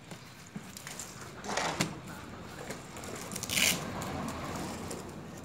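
Handling of a padded fabric cover: rustling and small knocks, with a short noisy tearing sound a little past halfway through, the loudest moment.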